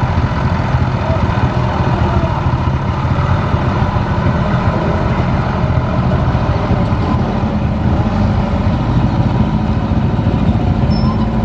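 Steady low engine drone as a small truck and then a motorbike drive off a river ferry's ramp onto the bank, with faint voices of people waiting.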